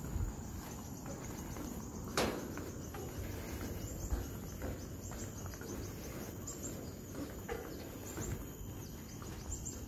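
Footsteps on an elevated steel walkway, with insects chirping high and repeatedly in the surrounding trees. One sharp click about two seconds in.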